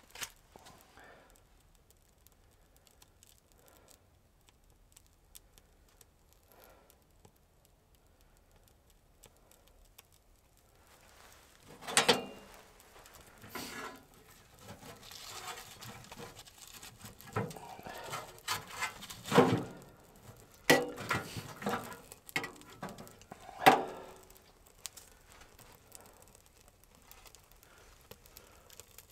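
Objects being handled: a near-quiet stretch, then from about a third of the way in a run of knocks, clinks and rustling, with several sharp knocks, the loudest near the end.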